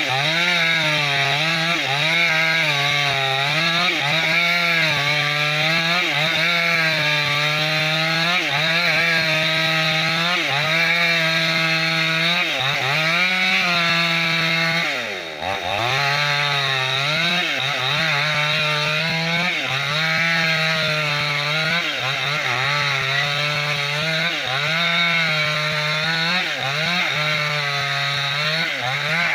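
New West 568 two-stroke chainsaw running at full throttle while ripping a bayur log lengthwise into planks. The engine note wavers steadily as the chain loads and frees in the cut, and about halfway through the revs drop sharply and climb back.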